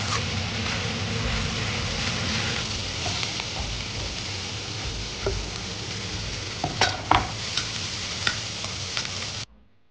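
Chopped scallions sizzling as they are stir-fried in a wok, with a metal spatula scraping and knocking against the pan a few times around seven and eight seconds in. The sizzle cuts off abruptly just before the end.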